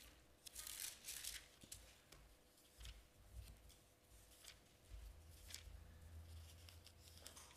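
Near silence with a scattering of faint paper rustles as thin Bible pages are turned, under a faint steady hum.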